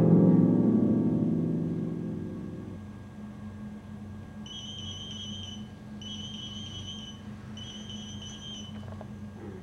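Harp music dies away, then a pager goes off about halfway through with three trains of rapid high beeps, each about a second long, alerting to an incoming page.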